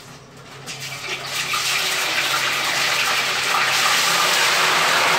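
Food tipped from a bag into a pot of hot oil, frying with a hiss that swells about a second in and then holds loud and steady.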